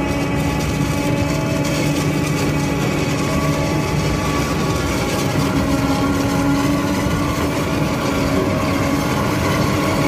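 Self-propelled forage harvester chopping maize for fodder, its engine and cutting gear running steadily under load, with the engine of the tractor pulling the trailer alongside.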